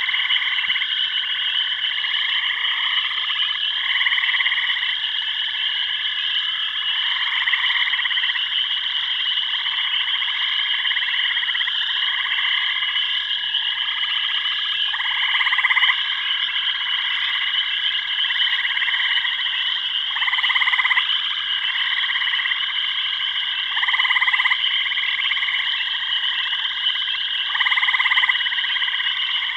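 A chorus of frogs calling in a jungle soundscape. A steady high trill runs throughout, with lower croaking calls of about half a second to a second repeating every second or two.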